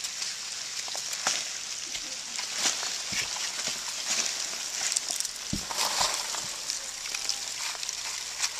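Cardboard egg flats in a dubia roach bin rustling and scraping as a hand rummages through them, with a steady papery hiss and many small crackles and clicks. A few dull knocks sound in the handling, the clearest a little past halfway.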